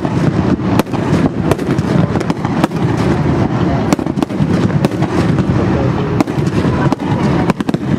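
Aerial fireworks display: a dense, continuous barrage of shell bursts, with many sharp bangs and crackles over a steady rumble.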